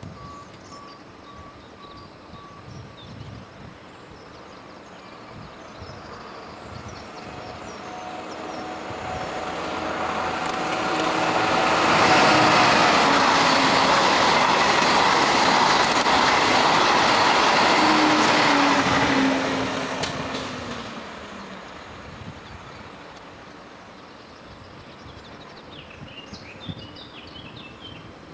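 TGV high-speed trainset passing at speed on an electrified main line. Its rushing rail and wheel noise builds over several seconds, stays loud for about seven seconds as the train goes by with a tone that drops in pitch, then fades away.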